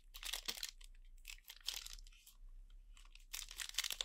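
Foil wrapper of a Magic: The Gathering collector booster pack crinkling and tearing as it is opened by hand. A few crackles in the first second, sparser ones in the middle, then a louder run of crinkling near the end.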